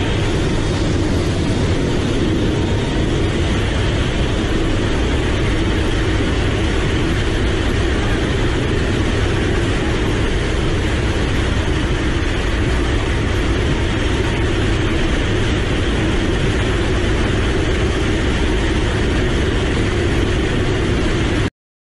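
Steady roar of a military transport aircraft's engines and rushing air, heard from inside the cabin with the rear ramp open during a paratrooper jump. It cuts out briefly near the end.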